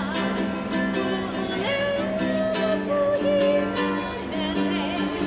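A woman singing, holding long notes with vibrato, while strumming chords on an E.L. Woodworks traditional tenor ukulele.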